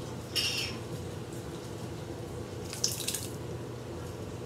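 Home-canned salsa being emptied from a glass jar into a stockpot of chili: two short wet sloshing sounds, about half a second in and again near three seconds, over a steady low hum.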